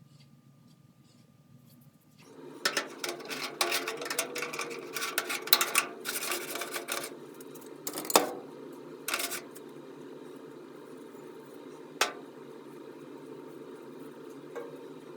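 Small metal clicks and rattles of tool chest hardware and drawer-slide parts being handled, densest in the first half, with a few single sharp clicks later. A steady low hum comes in about two seconds in and runs under them.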